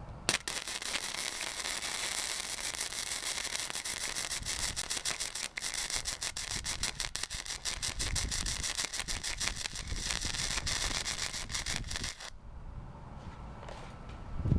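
Flux-core arc welding with a Blue Demon 140MSI on 0.030 wire: the arc crackles and sizzles as a bead is run on a steel T-joint, stopping abruptly after about twelve seconds. There is a brief break about five and a half seconds in, then more irregular popping, as the machine starts acting weird.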